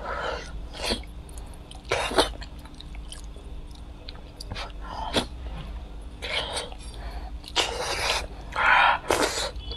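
Close-miked eating: a person chewing and sucking on braised meat, picked up by a lapel microphone. Several short, loud, breathy bursts come through, the longest two near the end.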